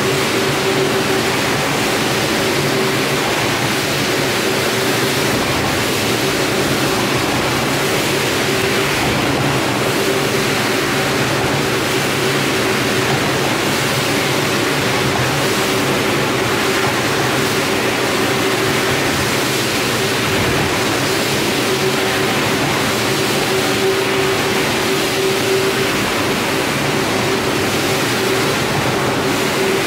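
Rotary floor scrubber running steadily, its brush scrubbing a wet, foamy rug: a constant motor hum with a steady tone over a wash of swishing scrub noise.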